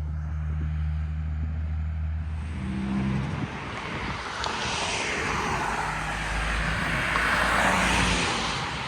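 A vehicle passing close by. A steady low engine drone in the first three seconds gives way to a rushing noise that builds and is loudest about eight seconds in.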